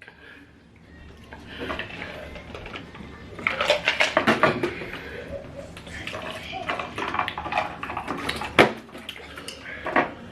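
Indistinct voices talking and reacting, with a few sharp clinks or knocks, the loudest one near the end.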